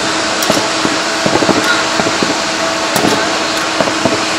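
Steady jet-aircraft hum and hiss with a constant low whine, and many irregular distant firework pops and crackles over it.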